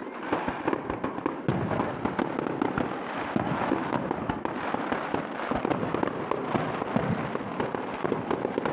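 Aerial fireworks display: a dense, continuous barrage of shell bursts and crackling, the bangs overlapping with no pause.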